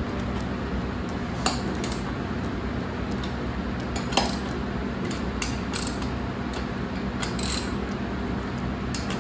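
Hand tools on a tractor wheel's lug nuts: four or five separate metallic clicks and clinks spread over several seconds, against a steady low hum.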